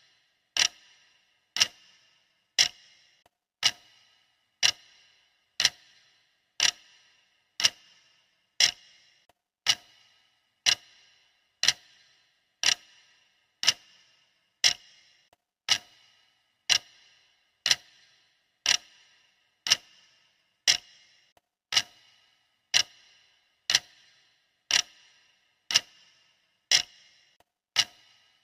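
Clock ticking sound effect of a countdown timer: sharp, even ticks about once a second.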